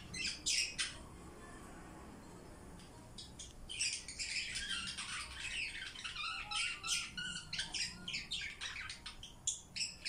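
Pet budgerigar chattering: a quick series of short, scratchy chirps and squawks, a pause of a couple of seconds, then a dense, rapid run of chatter.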